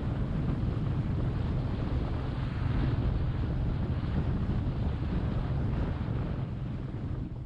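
Wind buffeting the microphone on a moving Royal Enfield Meteor 350 motorcycle, with the bike's single-cylinder engine running steadily beneath it. The rush starts to die down near the end.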